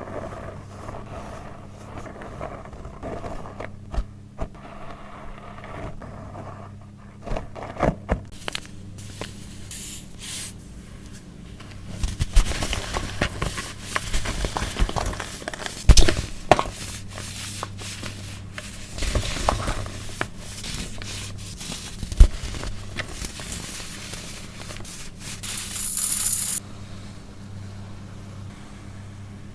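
Baking soda being crunched and scraped: irregular crackles and scrapes with a few sharp knocks, and a short hissing burst near the end. A steady low electrical hum runs underneath.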